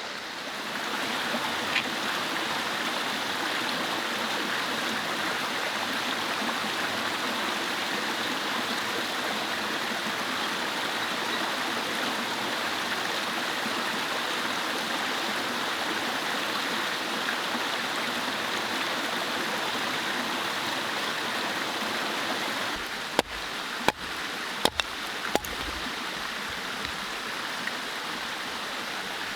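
Mountain stream flowing steadily: an even rush of water. About three-quarters of the way through the sound shifts and eases slightly, with four sharp clicks over a couple of seconds.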